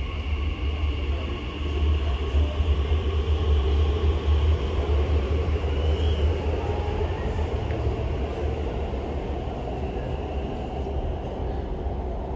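Elizabeth line Class 345 train running out of an underground station behind the platform screen doors: a deep rumble with a steady whine above it, loudest in the first half and fading after the middle.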